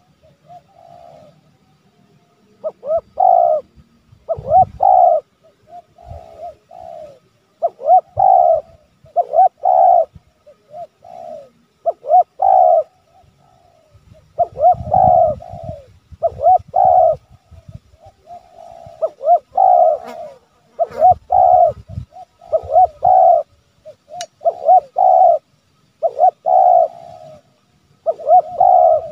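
Spotted dove (tekukur) cooing in a long run of short coo notes, about one a second. This is the pressing, challenging call used to provoke wild doves and draw them in.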